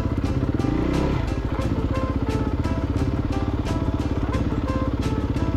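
KTM 250 dirt bike engine running, with a short rise in revs about a second in, under background music with a steady beat.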